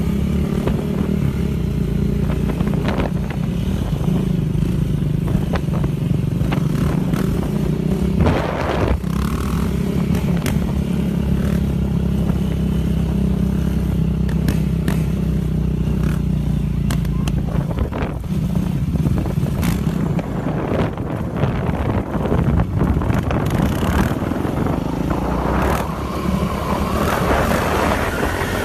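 Sport quad (ATV) engine running at a steady, held pitch through a long wheelie, with scattered knocks and clatter. The engine note dips briefly about eight seconds in and again about eighteen seconds in.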